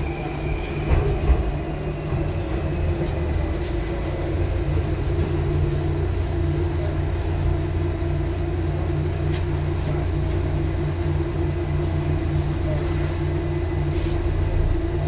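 81-725/726/727 'Baltiets' metro train slowing into a station: steady rumble of the car with the traction motors' whine gliding down in pitch as it brakes. Two sharp clicks come later on.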